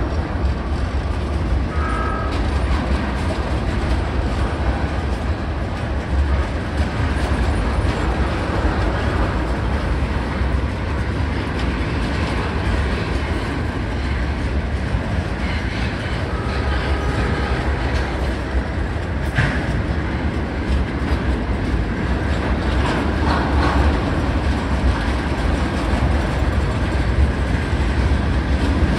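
Freight train's tank cars and covered hoppers rolling past: a steady rumble of steel wheels on the rail with a fast clickety-clack, and a couple of brief high squeals from the wheels.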